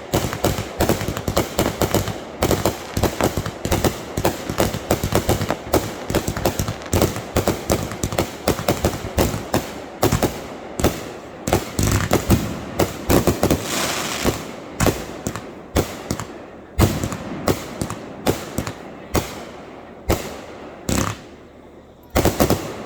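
Fireworks going off in rapid succession, many sharp bangs a second, thinning out to a few separate bangs near the end.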